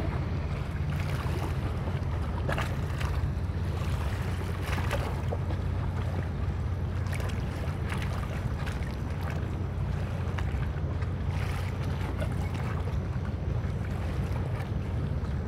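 Steady low rumble of a boat's engine underway, with wind buffeting the microphone and scattered splashes of water against the hull.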